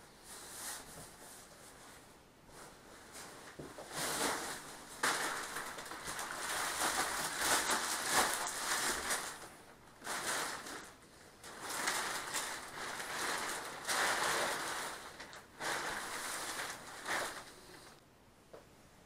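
Plastic film wrapping of a rolled memory foam mattress crinkling and rustling as it is pulled off, in several long bursts with short pauses between.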